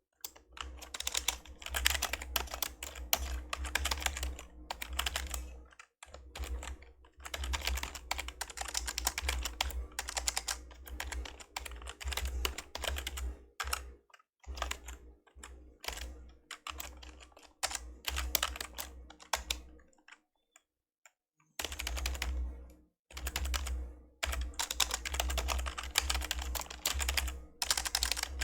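Typing on an old membrane computer keyboard: fast runs of soft key presses in bursts of several seconds, with short pauses and one longer stop about two-thirds of the way through.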